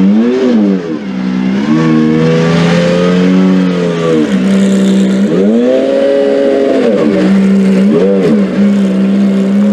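Maserati MC12 Corsa's V12 engine idling and revved four times: two quick throttle blips and two longer revs held for a second or two.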